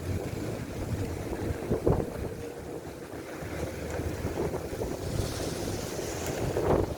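Wind rumbling on the microphone of a bicycle ridden through a snowstorm, with a sharp knock about two seconds in and another near the end.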